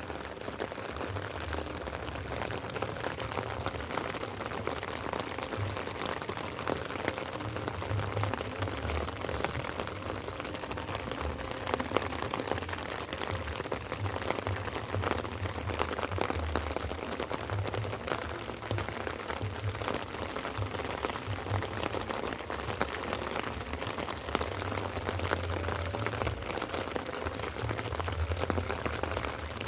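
Light rain falling steadily, many fine drops ticking, with an uneven low rumble underneath that comes and goes.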